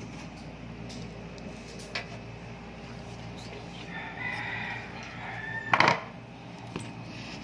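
A drawn-out bird call starting about four seconds in and loudest at its end, nearly two seconds later, over a steady low hum.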